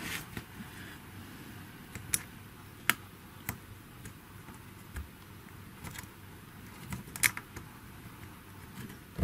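Scattered small, sharp clicks and taps from fingers working at a hair straightener's metal heater plate, trying to slide it off its mount. The plate is clipped in place and stuck fast.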